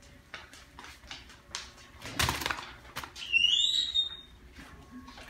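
Footsteps on a hardwood floor, a loud thump about two seconds in, then a child's high-pitched excited squeal lasting about a second.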